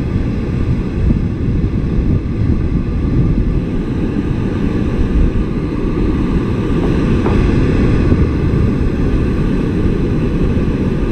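Wind buffeting the microphone: a steady, loud low rumble of noise.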